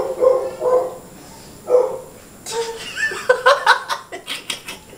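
Men laughing in short, yelping bursts, which come thick and fast from about halfway through.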